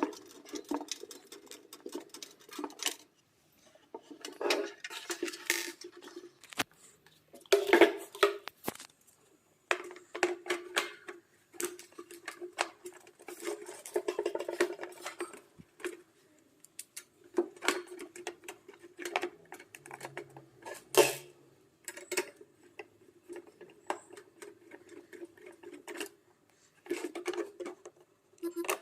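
Metal parts of an electric room heater clinking and clicking as they are handled and fitted back together, with scattered, irregular taps and knocks.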